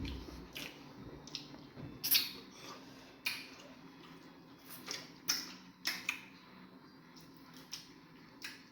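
Close-up eating sounds: wet chewing and lip-smacking of fufu with egusi soup, a dozen or so short irregular smacks and clicks.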